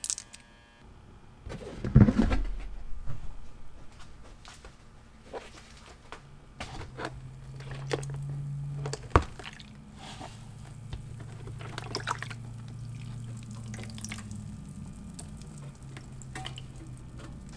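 Cleaning vinegar sloshing and dripping in a plastic tub as a rusty hand saw is laid in to soak, with a loud knock about two seconds in and scattered drips and clicks after. A low steady hum runs underneath from about a third of the way in.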